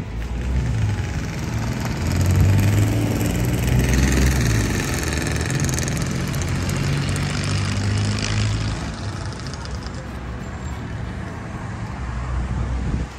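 Street traffic: car engines running and passing, with a low engine hum that swells and is loudest over the first few seconds, then eases off after about nine seconds.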